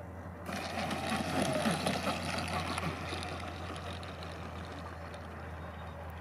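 Twin 10-blade 70 mm electric ducted fans of a model jet running as it rolls along the runway. A rushing fan sound comes in suddenly about half a second in, is loudest for the next two seconds or so, then settles to a steadier level over a low hum.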